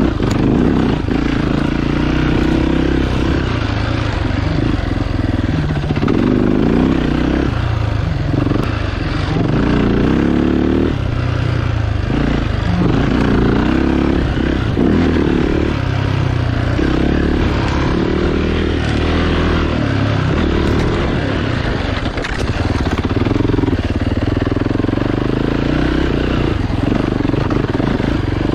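Off-road motorcycle engine under way on a dirt trail, its pitch rising and falling every second or two as the throttle is opened and closed.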